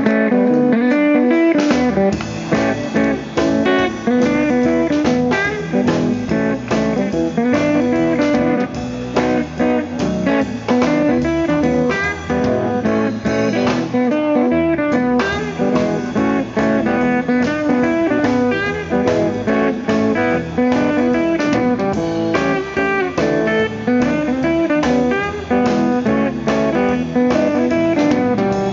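Blues band playing live, led by guitar, with a steady beat and low bass notes that come in about two seconds in.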